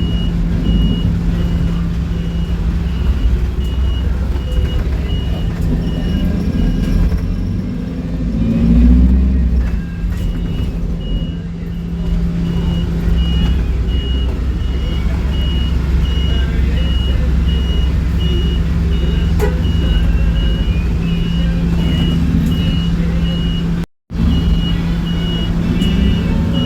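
Small bus idling with its door-warning beeper sounding, a short high beep about twice a second. The beeping stops for about three seconds around seven seconds in while a low rumble swells, then starts again.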